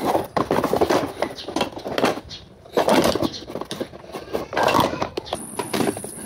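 Handling noise: a cardboard box rustling and scraping as steel-backed drum-brake shoes are lifted out of it, in irregular bursts with a few light knocks.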